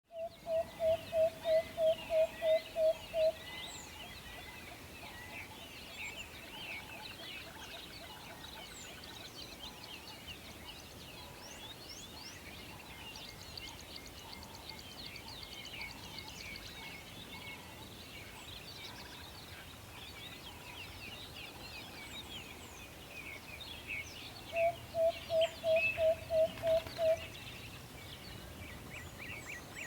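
An owl calling twice, each call a fast run of about nine or ten evenly spaced hoots on one low pitch, lasting about three seconds: one at the start and one near the end. Small songbirds chirp and twitter throughout.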